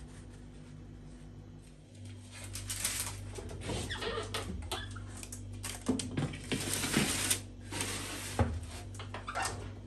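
Oven door being opened and a parchment-lined baking sheet pushed onto the oven rack: paper rustling with metal clanks, scrapes and knocks, over a steady low hum.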